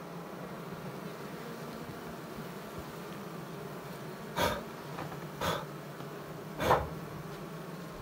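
Asian honey bees (Apis cerana) massed on their comb, buzzing with a steady low hum. Three short, loud sounds come about a second apart in the second half.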